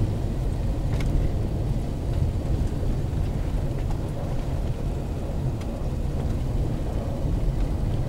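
Steady low rumble of a pickup truck driving on a snow-covered road, heard from inside the cab: engine and tyres running over packed snow.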